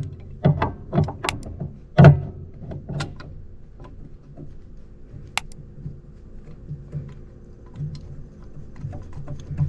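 Hand tools and metal parts clinking and knocking against the engine while the VVT solenoid bolts are worked loose by feel. A quick run of sharp knocks comes first, the loudest about two seconds in, then only scattered light ticks.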